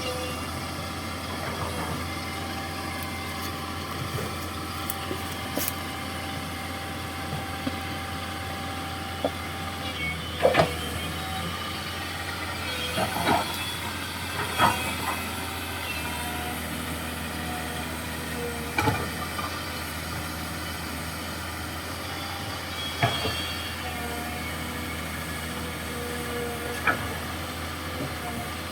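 Komatsu PC200-6 excavator at work: its diesel engine runs steadily, with a high steady whine for the first several seconds. About six sharp knocks come in the second half, a few seconds apart.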